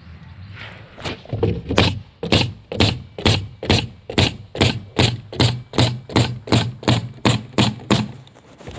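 Nails being driven into plywood wall bracing in a steady run of sharp strikes, about two a second, over a constant low hum.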